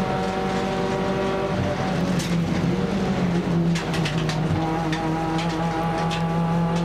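A Nissan March race car's engine running hard under racing load, heard from inside the cabin. The engine note holds steady, wavers and changes about two seconds in, then settles into a steady note again.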